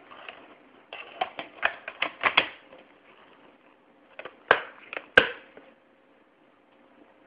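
Plastic VHS case and cassette being handled: a quick run of clicks and clacks about a second in, then a few more, ending in one sharp snap about two-thirds of the way through.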